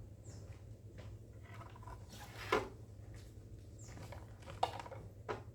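A few sharp clicks and knocks of objects being handled, the loudest about halfway through, over a low steady hum.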